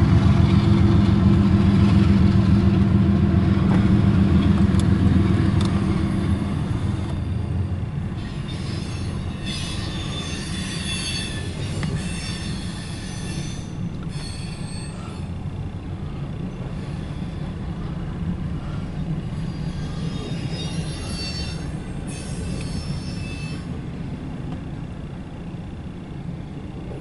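A CSX freight train passing, heard from inside a car. The diesel locomotive's engine rumble fades over the first several seconds. Then double-stack intermodal well cars roll past with a steady rumble, their wheels squealing in two long stretches, around a third of the way in and again past the two-thirds mark. The sound slowly grows quieter.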